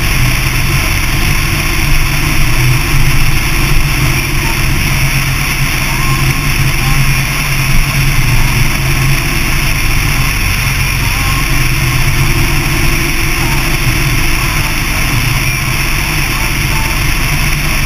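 Motorcycle cruising at highway speed: the engine runs steadily under a constant rush of wind and road noise.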